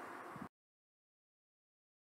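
Faint steady outdoor background noise that cuts off abruptly about half a second in, followed by complete silence.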